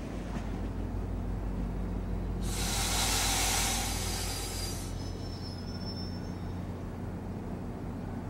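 Diesel locomotive approaching slowly, its engine a steady low drone. About two and a half seconds in, a loud hiss starts and lasts about two and a half seconds.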